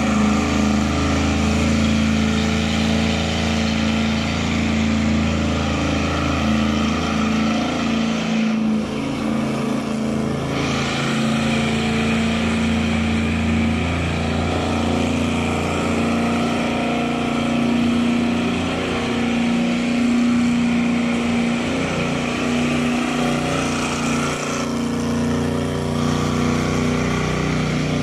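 Second-generation Chevrolet Camaro's engine held at high, steady revs during a long burnout, with the rear tyres spinning and hissing on the asphalt. The hiss thins out briefly twice.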